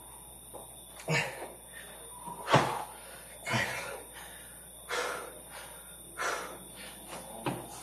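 A man breathing hard while doing a Navy SEAL burpee rep, with a forceful exhale about every second and a quarter; the loudest and sharpest comes about two and a half seconds in.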